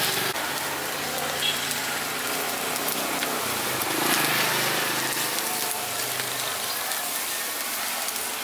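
Food sizzling over heat at a street-food stall: a steady hiss with many small crackles and pops.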